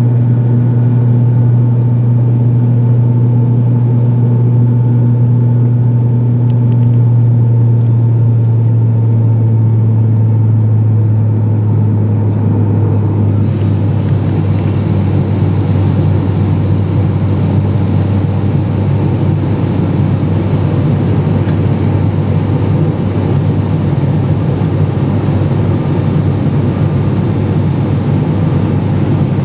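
Steady drone of an ATR 72-500 turboprop's propellers and engines heard inside the cabin, with a strong low hum. The hum drops slightly in pitch about ten seconds in, and a few seconds later a hiss of rushing air rises and stays.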